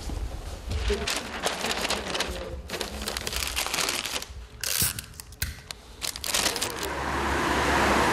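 Wrapping material crinkling and crackling in quick runs as food trays are wrapped by hand, easing off about five seconds in. Near the end the hiss of a car passing on a wet street swells up.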